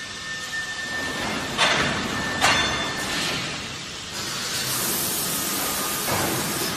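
DB-720/1220 automatic plastic vacuum forming machine running steadily, with two short sharp hisses about one and a half and two and a half seconds in, and a longer hiss starting past the middle.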